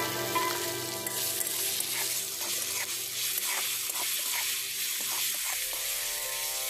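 Onions and flaked fish sizzling in oil in a metal kadai while a metal spatula stirs them, scraping and clacking against the pan in a run of short knocks through the middle of the stretch.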